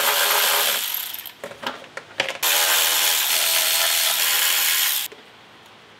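Milwaukee cordless electric ratchet spinning out 10 mm bolts: a run that dies away about a second in, a few clicks, then a second run of about two and a half seconds that cuts off suddenly.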